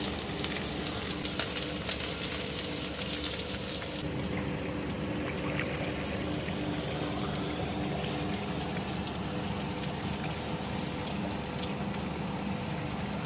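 Sausages and onions sizzling in a frying pan, then after about four seconds the hiss of water rushing along a moving motorboat's hull, with a steady low hum under both.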